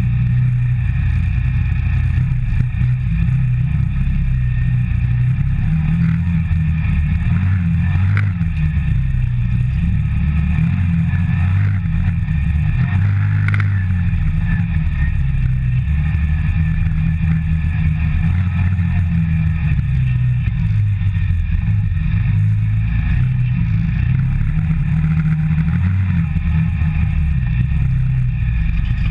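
CFMOTO ZForce 550 side-by-side's single-cylinder engine running steadily while driving a dirt trail, heard from inside the cab. A couple of brief knocks come through, about a third of the way in and near the middle.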